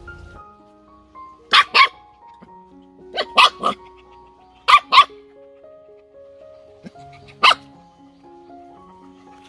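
A puppy barking in short, sharp barks: two, then three, then two, then a single one, over background music with a simple stepped melody.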